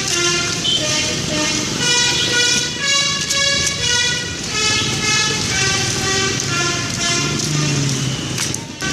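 Telolet bus horn playing a tune: a continuous run of short, pitched horn notes stepping up and down one after another.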